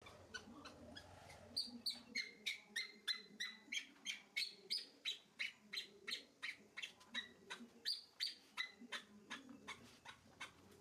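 A rapid series of short, high-pitched animal chirps, repeated about three times a second, starting about a second and a half in and stopping shortly before the end.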